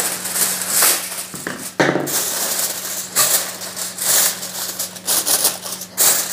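Kitchen aluminium foil crinkling and rustling in repeated irregular bursts as it is handled and pressed over a pot to cover it.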